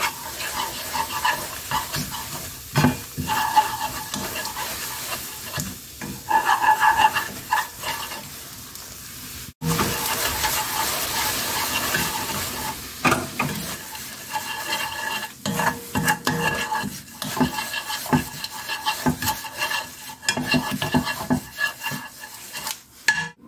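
Soy-sauce seasoning bubbling and sizzling at the boil in a pan while a wooden spatula stirs and scrapes through it, with sliced hot green chillies just added to cook briefly. The sound cuts out for an instant about ten seconds in.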